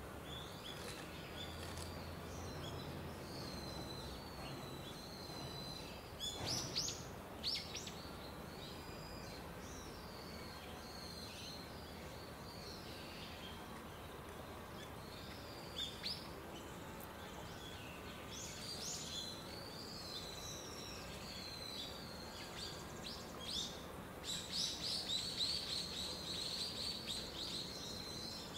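Small birds chirping and twittering: many short, high-pitched calls and quick phrases over a steady background hum of outdoor noise, getting busiest near the end.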